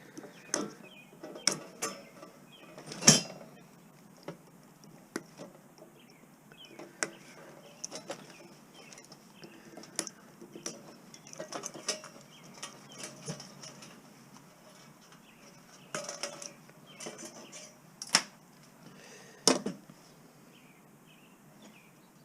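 Scattered clinks, clicks and knocks of small metal scrap parts and hand tools being handled while a piece is taken apart and its wire cut off. There is a louder knock about three seconds in and two more near the end.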